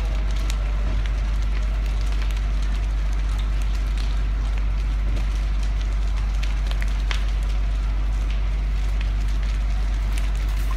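A fully involved house fire burning: scattered sharp crackles and pops over a steady low rumble.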